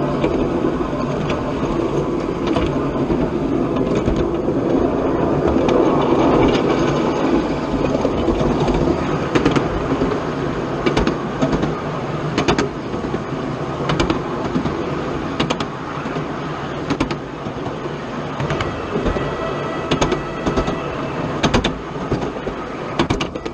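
Miniature railroad train running along its track, a steady rumble with irregular sharp clicks from the wheels over the rail joints.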